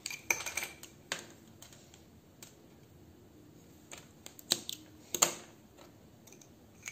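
Sparse, light clicks and taps of hands handling yarn and a small pair of scissors while the crochet yarn tail is cut off.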